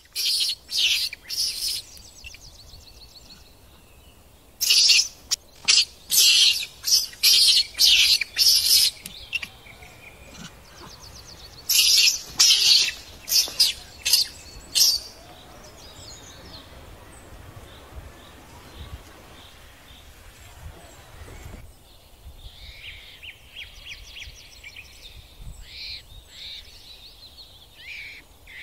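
Loud, harsh, high-pitched animal calls repeated about twice a second in three bouts through the first half, followed by fainter high chirping.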